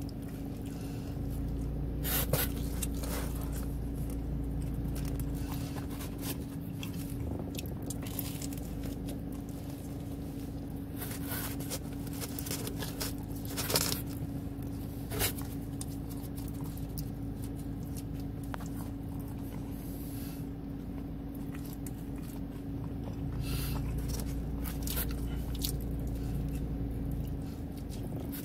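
Someone chewing and eating pepperoni pizza close to the microphone, with scattered sharp clicks and scrapes from handling the cardboard pizza box, over a steady low hum.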